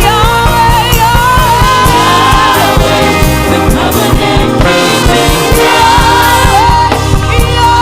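Live gospel worship music: voices singing a sustained melody over a band with a steady beat and bass.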